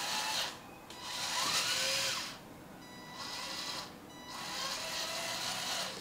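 Electric motor and gearing of a 1/14 LESU H13ix hydraulic RC road roller whirring as it drives in reverse. The sound comes in about four runs of one to two seconds, with short drops in between as the model stops and starts.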